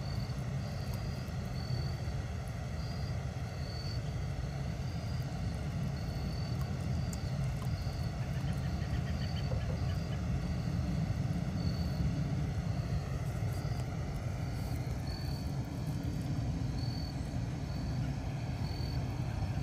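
Outdoor background of a steady low rumble, with an insect chirping evenly about once a second.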